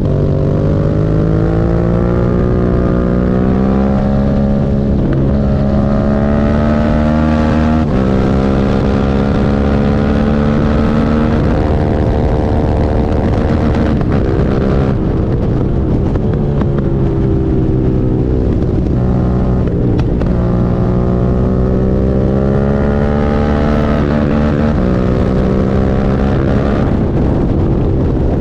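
Suzuki SV650's V-twin engine under way, its pitch climbing with the revs and dropping sharply at each gear change, several times over.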